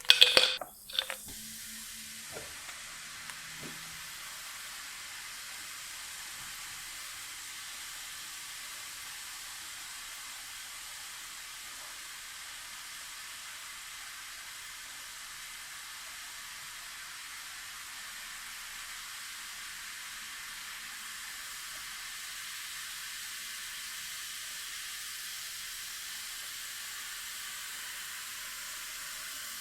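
An effervescent tablet going into water, with a brief loud splash about a second long at the start and a few faint ticks after it. It then fizzes steadily as it dissolves: a continuous high hiss of bursting bubbles.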